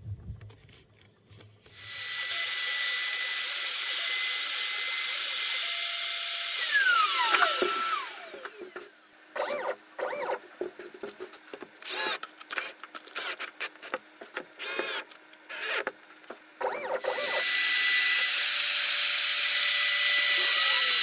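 CNC machine's router spindle running at high speed with a steady high-pitched whine, milling black acrylic sheet. About two seconds in it spins up; around seven seconds in its pitch falls as it winds down, followed by scattered clicks and knocks, and at about seventeen seconds it is running again.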